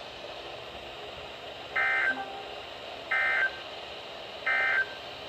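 Emergency Alert System end-of-message signal: three short, buzzy SAME data bursts, each about a third of a second long and about 1.4 s apart, over a steady background hiss. It marks the end of the broadcast alert.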